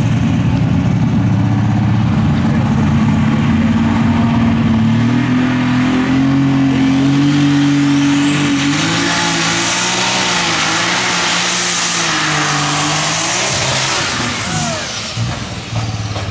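Light Super Stock pulling tractor's turbocharged alcohol engine running flat out under load as it drags the weight sled. The engine note climbs over the first several seconds, and a high whine rises about eight seconds in, holds, then falls away near the end as the engine eases off.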